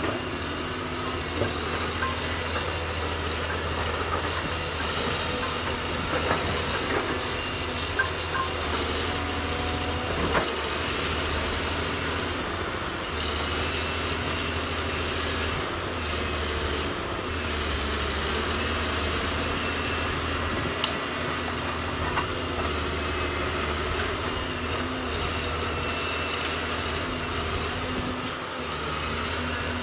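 Caterpillar 320C hydraulic excavator's diesel engine running steadily as the machine works, a constant low drone, with a few sharp cracks of breaking brush and branches.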